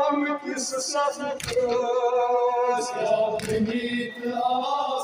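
Kashmiri noha, a Muharram lament, sung unaccompanied by male voices in long held notes with short breaks between phrases.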